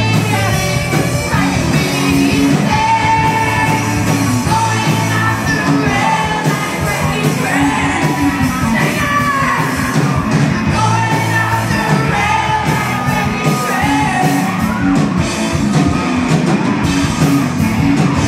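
A live rock band playing: a singer's vocals over electric guitars, bass guitar and drums.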